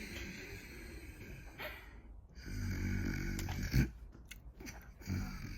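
A man snoring in his sleep, with a low rattling snore about two and a half seconds in that ends in a sharp, short knock.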